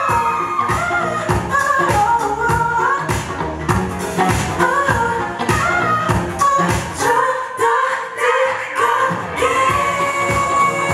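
K-pop song playing loud, with a steady beat under a sung melody.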